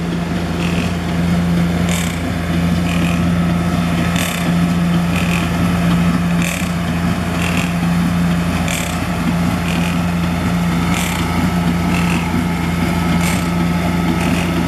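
Concrete pump running steadily under its diesel engine drone, with a sharp clunk about once a second as the pump cycles and pushes concrete through the hose.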